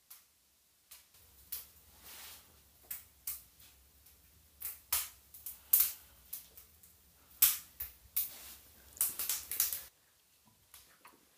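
Irregular sharp clicks and knocks over a low rumble, starting about a second in and stopping about a second before the end. This is handling noise and knocking from the phone being carried up a wooden ladder inside a small pine-clad room.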